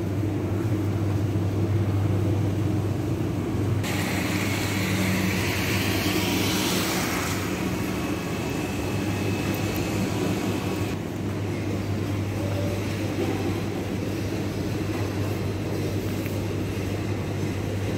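Supermarket ambience: a steady low hum of refrigeration and ventilation with the rolling rumble of a shopping cart pushed across the floor, and a louder hissing stretch from about four to eleven seconds in.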